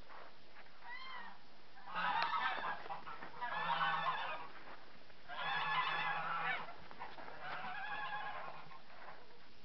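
Farmyard animal calling: a faint short call about a second in, then four loud drawn-out calls a second or so apart, their pitch wavering slightly.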